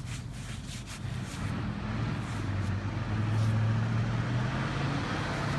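ZIL truck engine running under load as the truck works in deep mud where it has got stuck. Its steady note grows louder from about a second and a half in.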